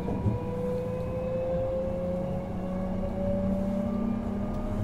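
Inside a Hankyu 1000 series electric train car, the permanent-magnet synchronous traction motors and their inverter give a steady whine that rises slowly in pitch as the train accelerates, over the low rumble of the running gear. There is one brief knock near the start.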